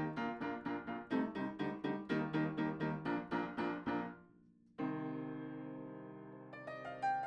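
Solo piano music: a quick stream of notes, about five a second, breaks off about four seconds in. After a brief gap a single chord rings and slowly fades, with a few higher notes added near the end.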